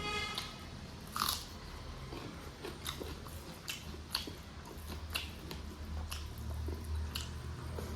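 Close-up eating sounds of chicken and rice: chewing and wet mouth smacks, heard as irregular short clicks over a low steady hum.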